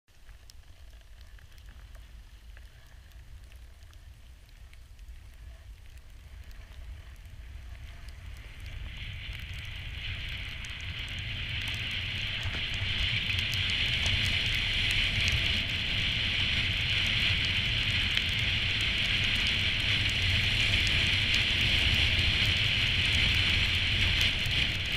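Skis sliding and scraping over snow, a steady hiss with a low rumble of wind on the camera's microphone beneath it, growing louder over the first dozen seconds as the skier gathers speed and then holding steady.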